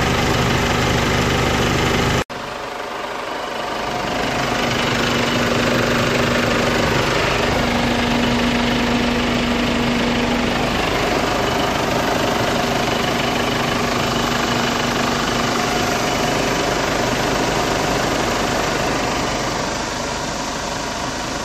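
Hyundai Tucson's 2.0 VGT turbo-diesel engine idling steadily under the open hood. There is an abrupt cut about two seconds in, after which the idle carries on at an even level.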